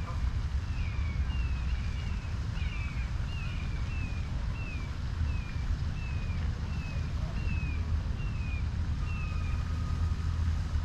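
A bird repeating short, high, downward-sliding chirps, about two a second, stopping near the end, over a steady low rumble.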